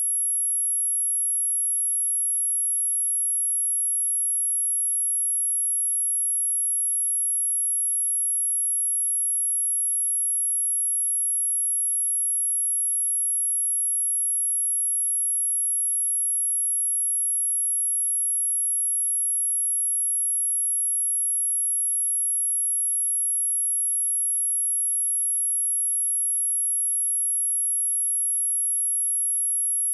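A pure 11207 Hz sine-wave test tone, one steady high-pitched whistle that holds without change.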